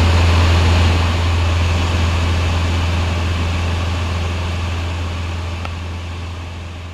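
Jodel DR1050 light aircraft heard from inside the cockpit in cruise: its four-cylinder engine and propeller give a steady low drone with airflow noise. The drone fades out gradually from about a second in.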